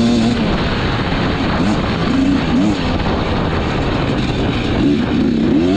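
Dirt bike engine revving up and down in quick repeated swells as the throttle is worked on the trail, over a steady rush of riding noise.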